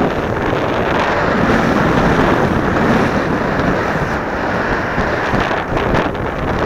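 Rushing wind buffeting the microphone of a skier's camera during a downhill run, mixed with the hiss and scrape of skis on packed snow. The noise is loud and steady throughout.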